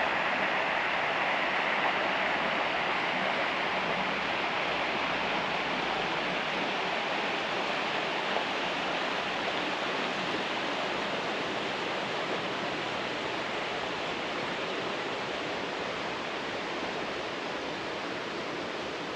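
Rushing water of a mountain stream, a steady, even hiss that slowly fades.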